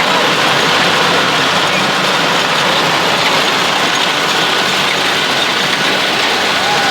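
Rice combine harvester running at work, heard from on board: a loud, steady mechanical din of its engine and machinery.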